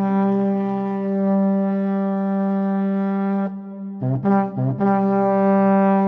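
A brass instrument holds a long, steady low note. After a short break come two quick notes, then the same low note held long again.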